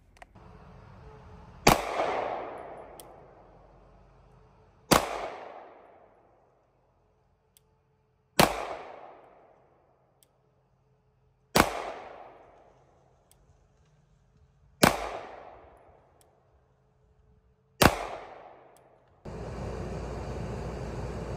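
Handgun fired six times in slow, deliberate fire, a shot about every three seconds, each report ringing out and fading over a second or so. Near the end the sound cuts to a steady background noise.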